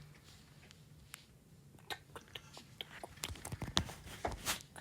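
Faint, irregular clicks and taps, starting about two seconds in and coming more often toward the end.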